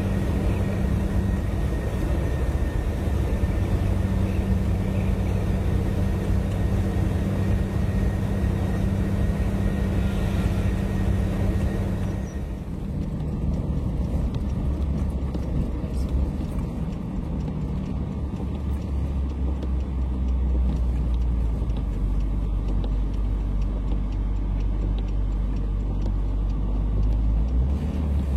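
Vehicle engine drone and road noise heard from inside the cab while driving. About twelve seconds in, the sound changes: the engine note drops lower and the hiss of the road fades.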